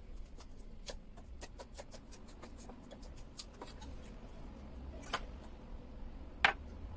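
Kitchen knife slicing green onions, a quick run of crisp cuts about four a second for the first three and a half seconds. Then a louder click about five seconds in and a sharp knock near the end.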